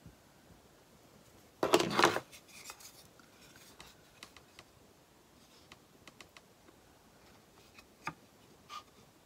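Handling noise from wooden kitchen utensils and craft supplies on a worktable: a brief loud scrape and rustle about two seconds in, then scattered light clicks and taps, with one sharper click near the end.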